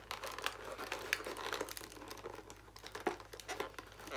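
Crinkling plastic and light, irregular clicks of small plastic pieces being handled, as fingers work a tiny lid off a doll-sized chocolate box.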